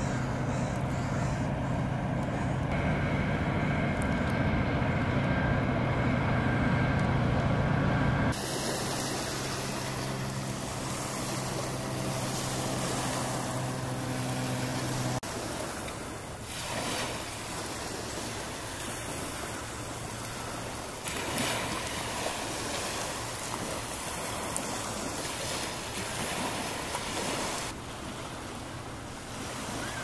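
BNSF freight train's diesel locomotives running as the train passes, a loud steady low engine drone that cuts off abruptly about eight seconds in; a weaker engine hum carries on to about fifteen seconds. After that only a steady rushing noise of wind and water.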